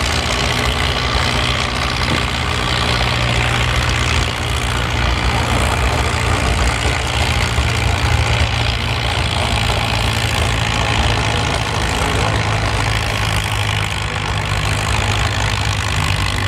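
Farm tractor engine running steadily under heavy load as it drags a weight-transfer pulling sled down the track.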